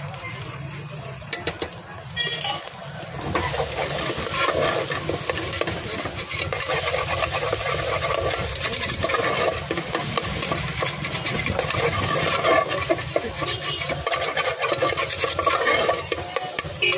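A flat spatula stirring and scraping eggs and spices against the bottom and sides of a large aluminium pot, with sizzling from frying. The scraping grows louder and busier about three seconds in.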